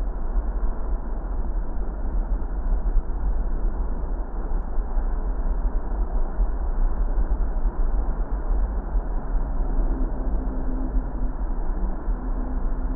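Steady road and engine noise of a car driving: a strong low rumble under a muffled hiss. A faint humming tone joins in about nine seconds in.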